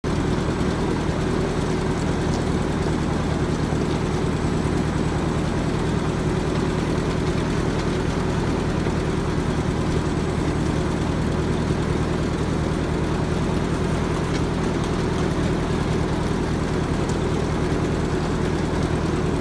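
Tractor engine running at a steady speed while driving along, heard from on board; its low hum holds one pitch throughout.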